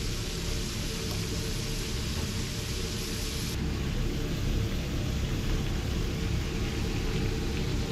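Steady rumbling hiss of a restaurant kitchen around a lit commercial gas range. The hiss dulls a little about three and a half seconds in.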